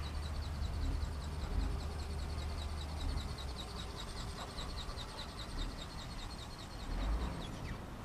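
A rapid, steady train of short high-pitched chirps over a low rumble, with a single falling chirp near the end.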